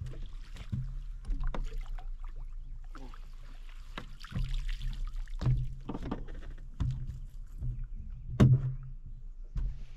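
A bass being netted and lifted from the lake, water dripping and splashing off the landing net, then a series of knocks and thumps on the boat deck as the net is brought aboard over a steady low rumble. The loudest knock comes about eight and a half seconds in.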